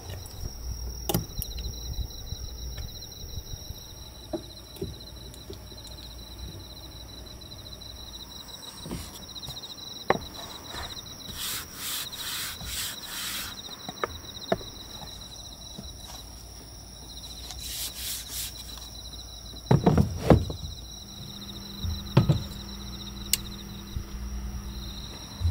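Crickets trilling steadily in a high, even pulse. Over it, a pine board is slid and rubbed across a slatted wooden table around the middle, and there are a few wooden knocks as things are set down later on.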